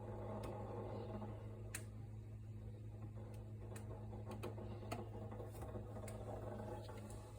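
Samsung RT32 refrigerator running with a steady low hum, with irregular sharp ticks over it: the abnormal noise the fridge is making.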